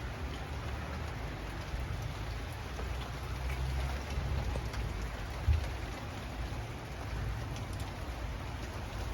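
Steady rain falling, with a low rumble of wind buffeting the microphone. A brief thump about five and a half seconds in.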